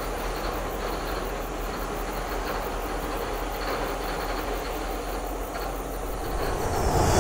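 Diesel locomotive running slowly during shunting, a steady engine rumble with rail noise; it grows louder near the end.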